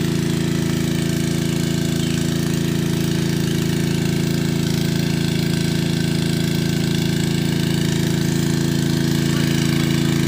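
A small engine running steadily at an even speed: a loud, constant low drone with a rapid even beat and no change in speed.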